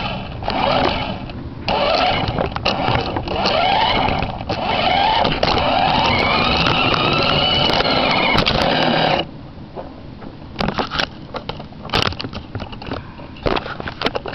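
Toy remote control car's motor and drivetrain running close to the microphone, its whine rising and falling in pitch as it speeds up and slows down. It stops about nine seconds in, leaving scattered clicks and knocks.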